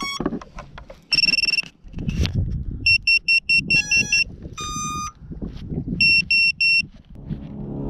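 Short high-pitched electronic beeps from a DarwinFPV 129 FPV drone's electronics as it is powered up and readied by hand. There is one longer beep about a second in, then runs of four to six quick beeps and a few multi-tone chirps, over bumps and rustle from handling.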